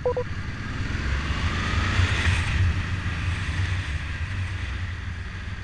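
Cruiser-style motorcycle engine running steadily under way, with wind rushing over the microphone. The wind noise swells about two seconds in.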